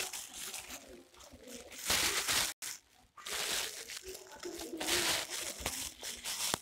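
Plastic sack liner and woven polypropylene grain sack rustling and crinkling in bursts as hands fold the sack's mouth closed.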